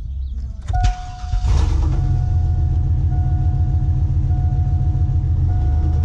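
Chevrolet 1500 pickup's engine, heard from inside the cab, starting about a second and a half in and settling into a steady, rumbling idle. A warning chime beeps in a regular on-off pattern about once a second. The engine has a leaking exhaust manifold that has been making it tick.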